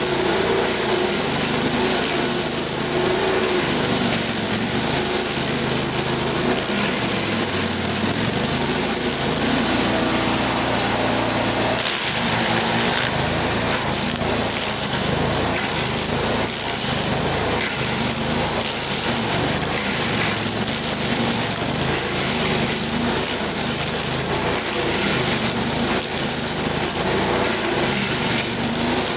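LASKI F500H stump grinder running under load, its cutter wheel chewing into the wood of an ash stump's core. The engine note dips and recovers as the wheel bites; the wheel has freshly fitted cutting teeth.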